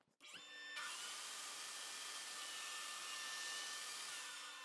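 Table saw fitted with a dado stack switching on and quickly coming up to speed, then running with a steady whine. A steady rushing hiss joins it just under a second in.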